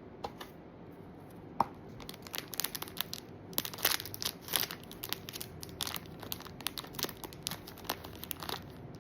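Pop Mart blind-box packaging being torn open and crinkled by hand: a scattered run of sharp rustles and tears, busiest from about two seconds in.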